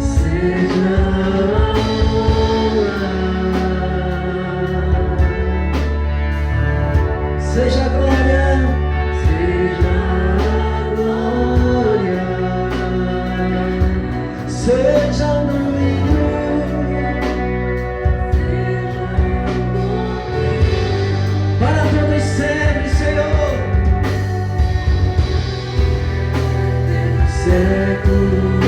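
Live church worship band playing, with a singing voice carrying a bending melody over sustained chords, bass and drums.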